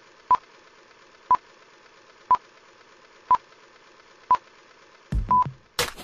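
Edited-in countdown beep effect: short high beeps at one steady pitch, one a second, over a faint hiss. Just after five seconds in, loud electronic music with heavy drum hits cuts in.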